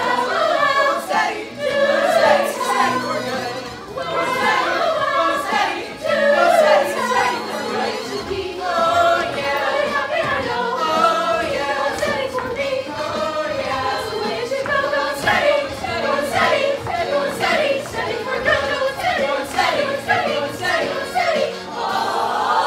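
A cappella vocal ensemble singing an upbeat show tune in harmony, with low held notes under the moving upper voices. Near the end the voices slide upward together.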